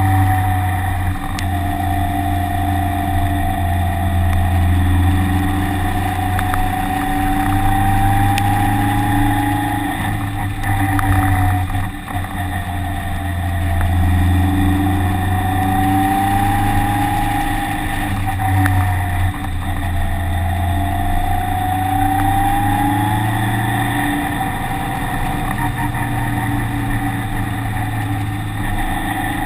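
Car engine running continuously under load, its pitch rising and falling several times as it accelerates and backs off.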